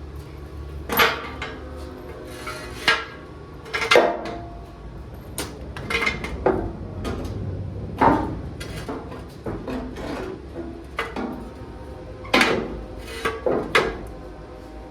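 Irregular metal-on-metal clanks and knocks, about ten over the stretch with short ringing after the louder ones: hand tools striking and handling steel truck parts.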